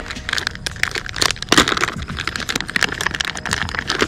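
Clear plastic bag of soft-plastic fishing baits being handled and opened, its film crinkling in a dense run of sharp crackles.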